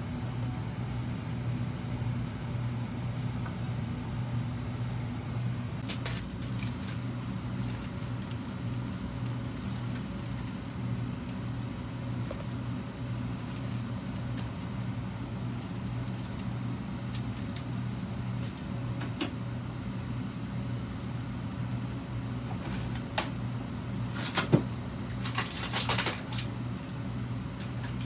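Steady low hum of a motor-driven fan or appliance. A few light clicks are heard, with a cluster of louder knocks and clicks about 24 to 26 seconds in.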